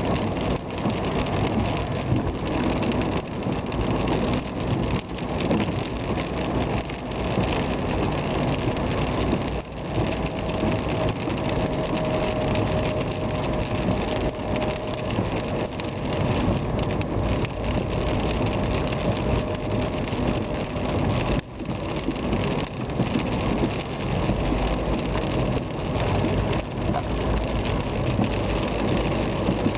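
A car driving in the rain: steady engine and road noise on a wet road, with rain hitting the car.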